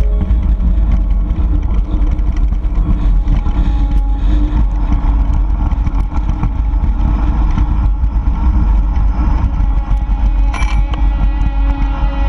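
Wind rushing over the camera microphone and a mountain bike's tyres rolling on a dirt fire road, a loud, steady, deep rumble.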